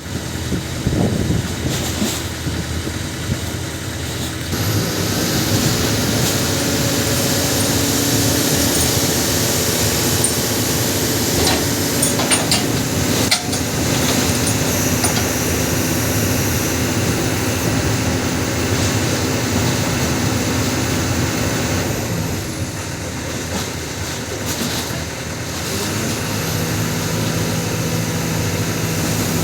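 Kobelco SK200 hydraulic excavator's diesel engine running steadily under work. It gets louder about four seconds in, has a few sharp knocks about halfway through, and settles to a lower, steadier hum near the end.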